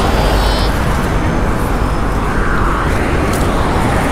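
Road traffic noise: a steady rumble of vehicles on a busy street.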